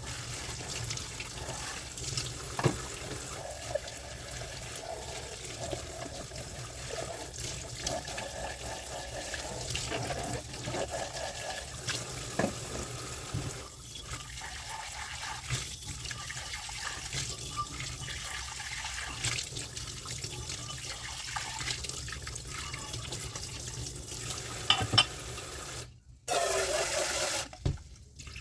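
Kitchen tap running into a sink while dishes are washed, with scattered sharp clinks of crockery and utensils. Near the end the water cuts out briefly, then runs louder for about a second.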